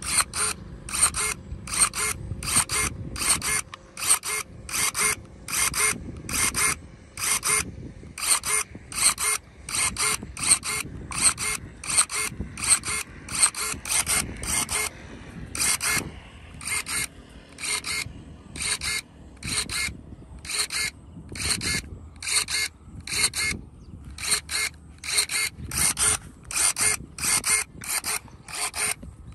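Cordless electric pruning shears snipping over and over, each cut a short motorised whir of the blade closing and reopening, about two cuts a second with a few brief pauses, as they clip thin leafy branches.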